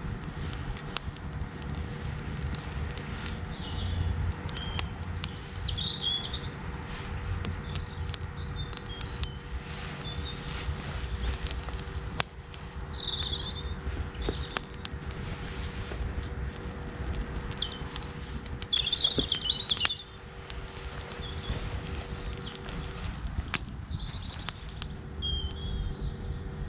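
Small campfire of twigs and dry tinder burning with frequent small crackles and pops over a low rumble. Small birds chirp and twitter at intervals.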